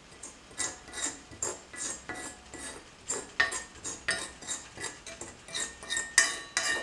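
Steel spoon stirring dry herbal powders around an iron kadai, scraping against the pan about three times a second, some strokes leaving a brief metallic ring.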